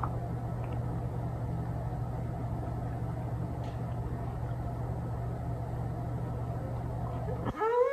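A steady low hum or rumble, with a short rising tone with overtones near the end.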